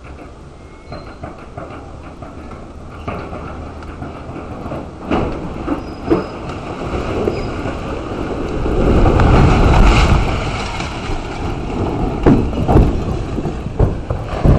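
Concrete walls of an apartment block crashing down under a demolition excavator: scattered cracks and clatters of breaking concrete build to a loud, heavy rumble of collapsing rubble about nine seconds in, followed by several more crashes of falling debris.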